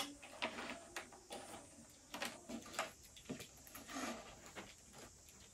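A sharp click, then scattered faint clicks and light knocks of a laptop being handled as it is opened and started up.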